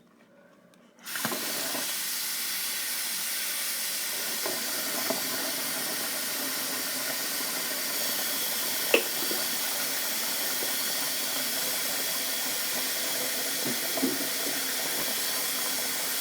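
Sink faucet turned on about a second in and running in a steady hiss. A few small knocks sound over it, the sharpest about halfway through.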